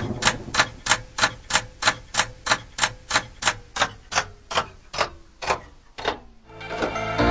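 Clock-ticking sound effect: sharp, evenly spaced ticks about three a second for some six seconds, the last tick after a longer gap. Music fades in near the end.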